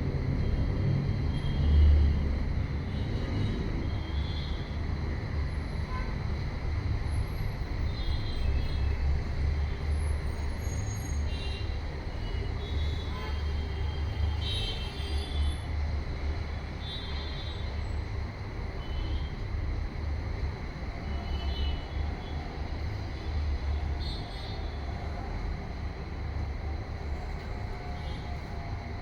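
Steady low background rumble with faint, short high-pitched chirps or squeaks scattered through it.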